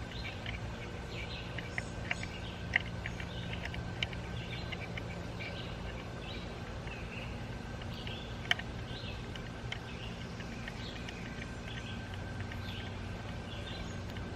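Small birds chirping over a steady low hum, with a few sharp clicks from hand tools on the engine, the loudest about three seconds in and again about eight and a half seconds in.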